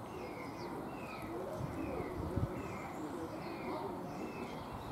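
Short falling chirps repeating about every half second in the background, with a few higher chirps among them, over a steady outdoor hum.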